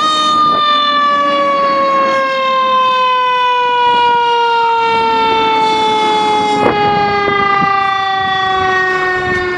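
Fire engine siren sounding as the truck pulls out on a call: one long tone that has just swept up and then slides slowly and steadily down in pitch, loud throughout.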